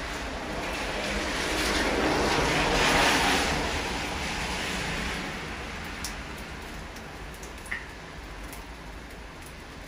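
Steady rain falling, with a rushing whoosh that builds over the first three seconds and dies back by about six seconds in. A few single drops tick near the end.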